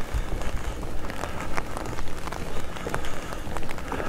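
Footsteps of a person walking at a steady pace, about two steps a second, over a low rumble.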